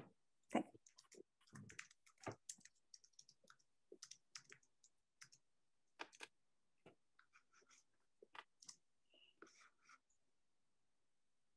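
Near silence broken by faint, irregular small clicks and light rustles, several a second at times, with no steady rhythm.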